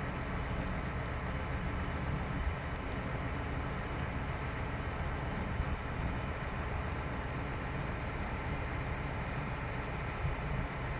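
Steady diesel engine drone from a truck-mounted loader crane's truck, its engine driving the crane hydraulics while the crane lifts a load.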